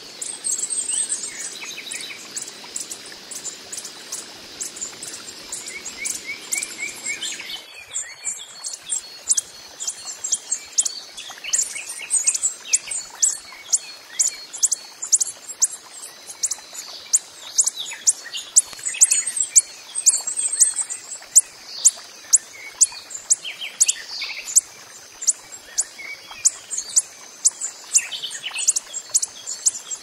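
Hummingbird calling: a rapid run of sharp, high, thin chips, several a second. For about the first eight seconds, higher twittering sits over a steady rushing noise that cuts off abruptly.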